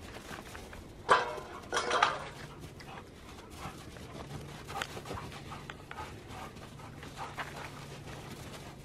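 A Siberian husky and an Alaskan malamute playing rough in snow: two short, loud dog vocalisations about one and two seconds in, then panting and scuffling.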